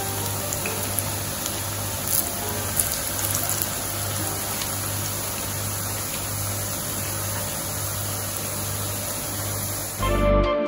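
Breadfruit slices frying in hot oil in a pan: steady sizzling with a few scattered pops. Music starts abruptly near the end.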